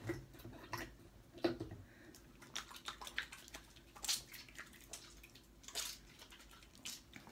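Hands washing in a small bucket of water: a run of irregular splashes and drips.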